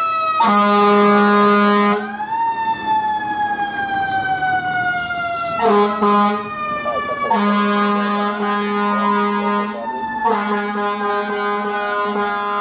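Fire truck air horns blasting four times, the first and last two blasts long, over a wailing siren that winds up and then slowly falls in pitch.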